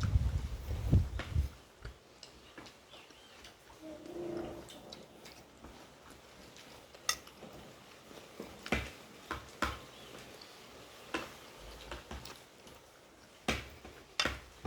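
Eating sounds: a fork or spoon clicking against a plate now and then, with low thumps in the first second and a half.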